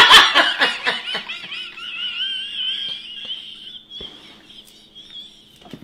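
A young man laughing hard in loud rhythmic bursts, then stifling it: the laugh turns into a high, wavering squeal held for a couple of seconds that fades away.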